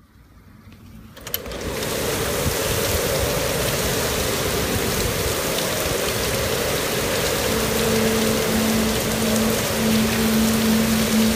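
Heavy thunderstorm rain pouring down steadily onto a parking lot, coming in about a second and a half in after a quiet moment. A faint low hum runs under it in the second half.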